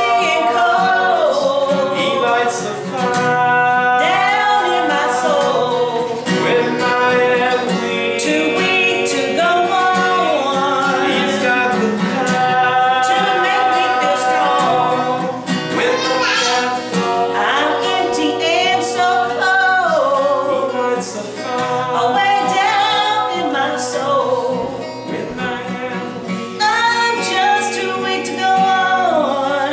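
A woman singing a slow song, holding long notes that slide between pitches, over instrumental accompaniment.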